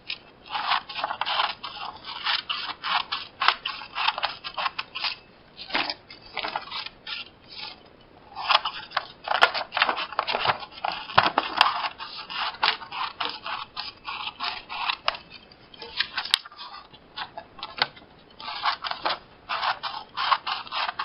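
Small green-handled scissors cutting printer paper, snip after snip in quick runs with short pauses between them, the paper rustling as it is turned.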